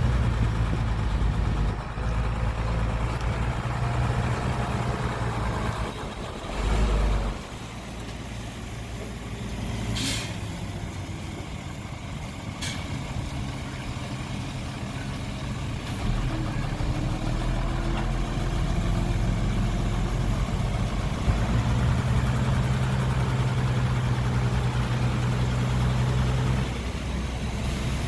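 Heavy diesel engines of earthmoving machines (a bulldozer and dump trucks) running and changing load, with a low heavy thump about a quarter of the way in. Two short, sharp hisses come near the middle.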